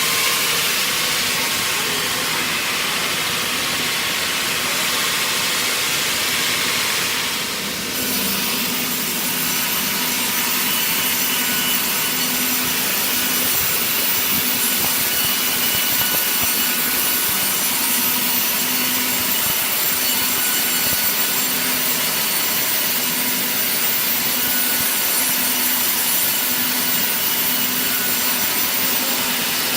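Sawmill saw cutting wood, a steady dense noise that changes abruptly about eight seconds in.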